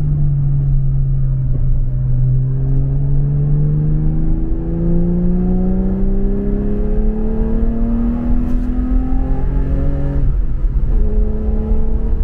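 Car engine heard from on board at speed, its note climbing steadily under acceleration over a constant low rumble of road and wind. Just after ten seconds in the note breaks off briefly, then comes back steady at a lower pitch.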